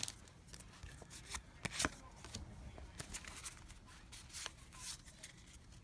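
Pokémon trading cards being handled and slid against one another, with soft rustles and a few light clicks.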